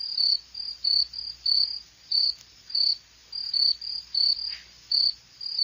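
Cricket chirping: short, high chirps repeating about two to three times a second.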